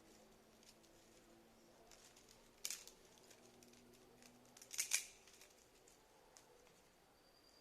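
Campfire crackling: faint scattered ticks, with two louder sharp pops, one under three seconds in and one about five seconds in.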